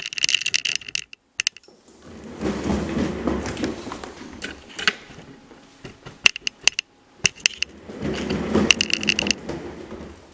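A cat running on a One Fast Cat exercise wheel: the wheel rumbles and rattles as it spins, in two spells a few seconds apart, with sharp clicks and short squeaks in between.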